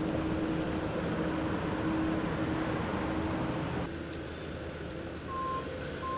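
City street traffic noise with a steady low hum. About four seconds in the background changes, and near the end a vehicle's reversing alarm starts beeping at about one beep a second.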